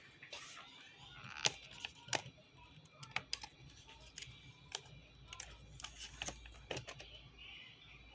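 Irregular sharp clicks and light taps of tools and plastic and metal laptop parts being handled during a laptop's disassembly for battery replacement.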